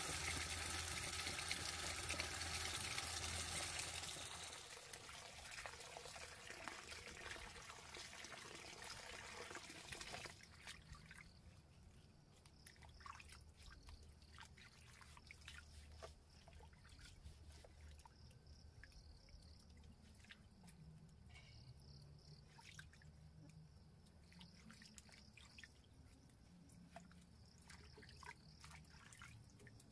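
Water running and trickling, strongest for the first few seconds, then easing and stopping about ten seconds in. Faint drips and small clicks follow over a thin, steady high tone.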